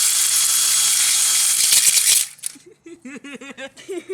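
Electric drill running against stacked phone parts, a loud grinding rattle that cuts off sharply about two seconds in. It is followed by a quieter, wavering pattern that repeats about five times a second.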